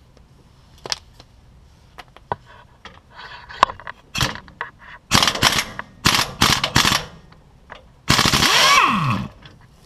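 Pneumatic impact wrench hammering in four short bursts, the longest near the end, loosening the remaining nut on a steering stabilizer mount. The last burst ends in a falling whine as the air motor winds down.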